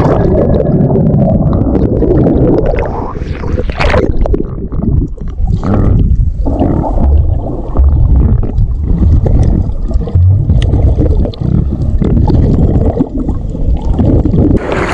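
Muffled underwater rumble and gurgling from a submerged action camera during snorkeling, with the water's movement heard as a dull churning.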